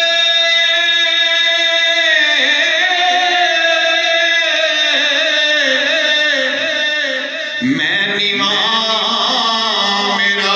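A man's voice singing an Islamic devotional chant into a microphone, amplified through a PA. It opens on a long held note, moves into wavering, ornamented phrases, and breaks briefly about three-quarters of the way through before starting a new phrase.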